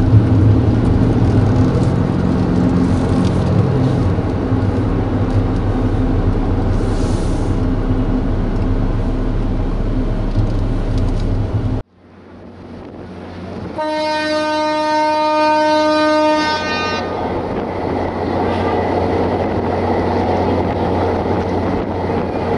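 Car engine and road noise heard from inside the cabin while driving, cutting off suddenly about halfway through. Then a ship's engine and water rumble, over which the ferry's horn sounds one long steady blast of about three seconds as it leaves port.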